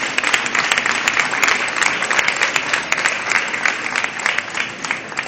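Audience applauding: dense hand-clapping that fades out near the end.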